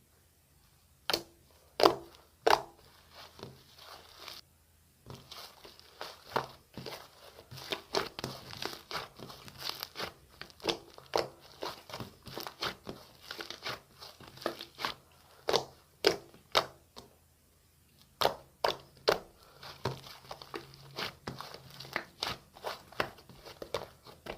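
Freshly made clay slime, mixed with air-dry clay and shaving foam, being squished and poked by hand, giving a long run of sticky crackles and clicks with a few louder snaps.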